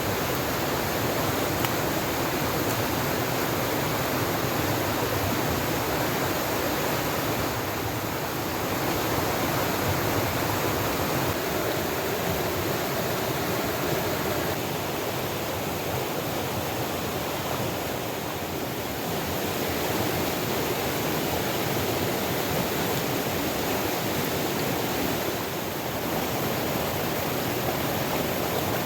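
Fast-flowing river water rushing steadily and evenly.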